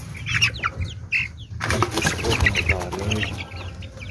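Young chickens in a wire cage peeping. About halfway through comes a second and a half of scuffling and rustling as the birds scramble.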